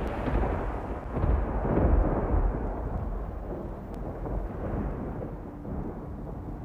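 Deep, rolling rumble of thunder, swelling to its loudest about two seconds in and then rumbling on more quietly.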